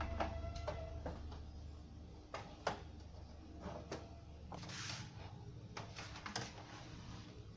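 Irregular light clicks and knocks, with a short scraping sound about five seconds in, from handling tools and parts.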